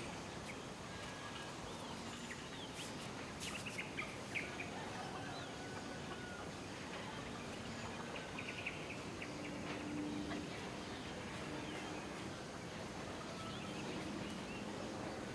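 Quiet outdoor morning ambience: scattered small bird chirps and distant chicken calls over a soft steady hiss, with a few faint clicks about three to four seconds in.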